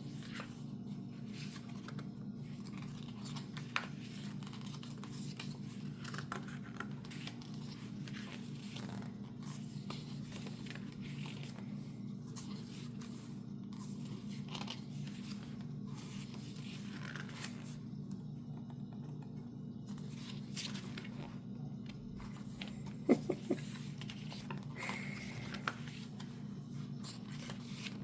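Photobook pages being turned and handled: soft, scattered paper rustles and scrapes over a steady low hum, with a few sharp clicks a little past the three-quarter mark.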